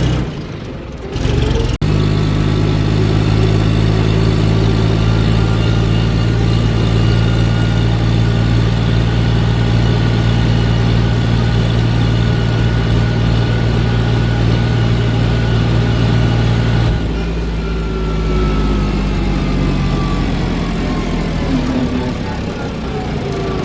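John Deere tractor's diesel engine running steadily on the road, its exhaust silencer refitted without a gasket so some exhaust leaks at the joint and the note sounds a little different. About two thirds of the way through the engine gets quieter and its pitch slowly falls as it eases off.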